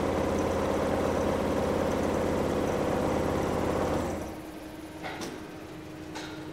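MAMMUT SELECT VMK 250 CNC 601 multi-needle double lock chainstitch quilting machine running, its rows of needles stitching with a fast, even mechanical clatter over a low hum. About four seconds in the loud stitching drops away, leaving a quieter steady machine hum and a couple of light clicks.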